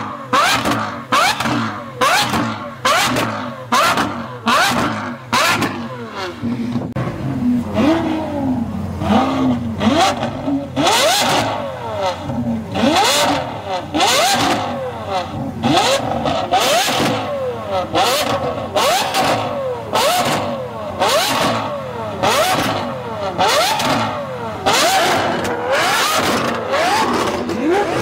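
Lamborghini Aventador V12 revved over and over with quick throttle blips. Each blip is a short rising rev, about one or two a second, with no pause between them.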